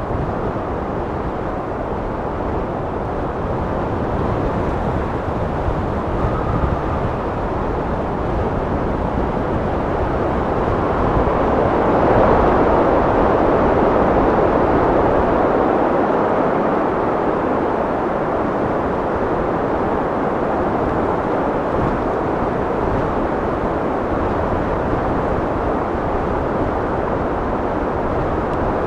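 Wind blowing with a steady rushing noise and a low rumble underneath, swelling into a stronger gust about twelve seconds in and then easing off.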